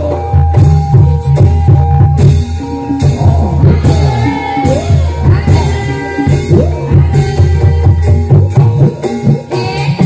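Loud Javanese gamelan music accompanying an ebeg dance: drums over a heavy, steady low beat, with held melodic tones and a voice singing over it.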